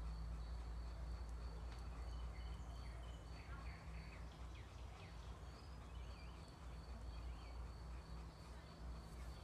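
Faint bird chirps over a low, steady rumble of outdoor background noise.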